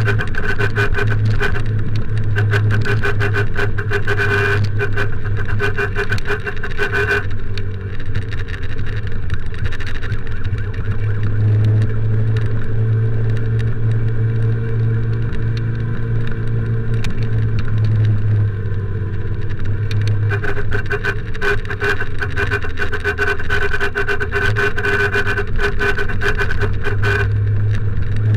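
Motorcycle riding in traffic: the engine's steady hum and wind rumble on an action camera's microphone. A steady high tone with a rapid flutter sounds over it from the start to about seven seconds in, and again for several seconds near the end.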